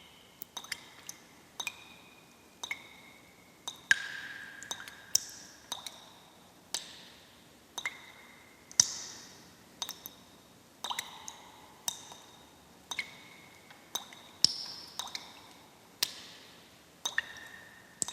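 Water drops falling one at a time, each a sharp plink with a brief ringing tone, about one a second at an uneven pace. Every drop rings at a different pitch, and some tones slide up or down.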